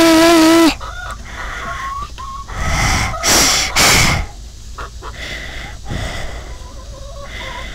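Chicken calling right at the microphone: a loud drawn-out squawk at the start, short clucks after it, and two loud rushing noises near the middle, then fainter clucks.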